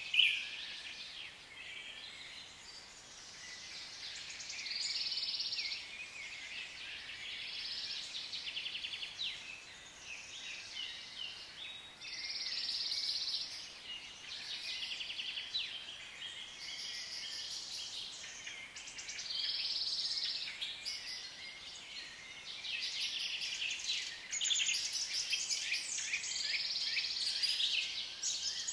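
Forest ambience of birds chirping and calling, the calls swelling into short bursts every few seconds.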